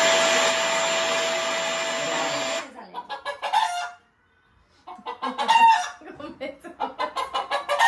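A steady machine-like whirring noise for about two and a half seconds that cuts off suddenly, followed by a hen clucking in quick repeated calls, played back through a speaker.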